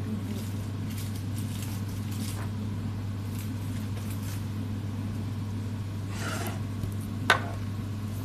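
A steady low hum, with a brief rustle about six seconds in and a single sharp knock a second later.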